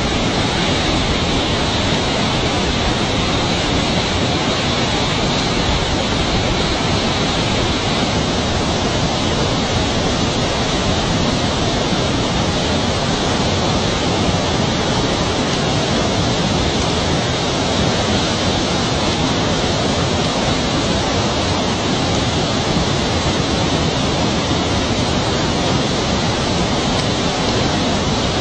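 Steady rush of a large flow of water pouring over a metal grate and chute, an even, unbroken noise.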